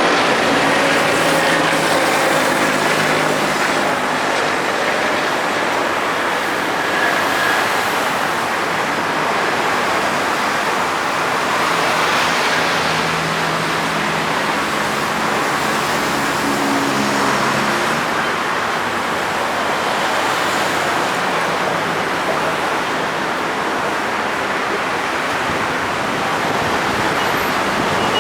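Heavy diesel engines of an excavator and a stuck dump truck running under load, under a steady rushing noise.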